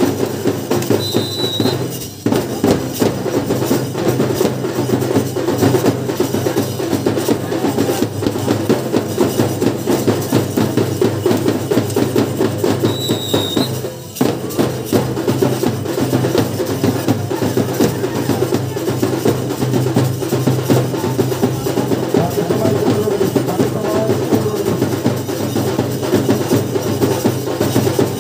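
Rapid, continuous drumming, the drum accompaniment to lathi khela stick fighting, dropping out briefly twice.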